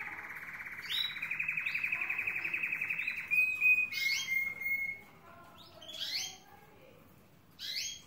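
Male harlequin Belgian canary singing its courtship song at a female: a long, rapid rolling trill for about three seconds, then a run of short sharp notes, and a few single chirps toward the end.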